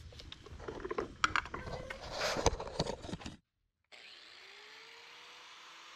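Irregular knocks, clicks and a short scraping rasp of equipment being handled. About three and a half seconds in, the sound cuts off abruptly and gives way to a faint steady hum with a low tone.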